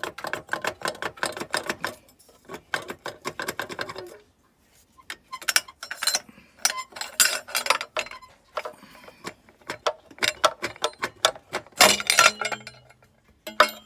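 Rapid metallic clicking and clinking of hand tools in spurts of a few seconds, with short pauses between them.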